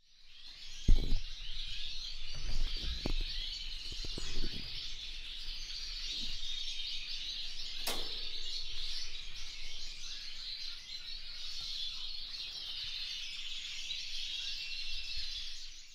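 Many small caged birds chirping and twittering together in a dense, steady chatter. A few knocks come in the first few seconds, the loudest about a second in, and a sharp click about eight seconds in.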